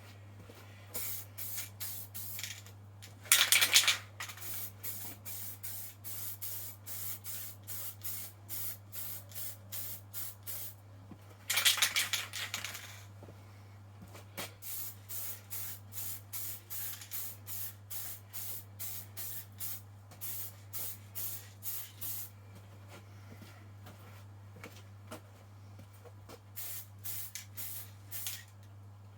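Aerosol can of general-purpose acrylic spray paint hissing out a light dust coat in many short puffs, about two a second, with two longer, louder bursts about three seconds in and near twelve seconds. A low steady hum runs underneath.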